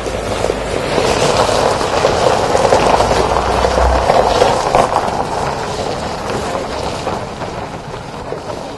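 Ambulance van driving away down a gravel road: a steady engine and road noise that swells about a second in and slowly fades. Wind rumbles on the microphone for the first four seconds.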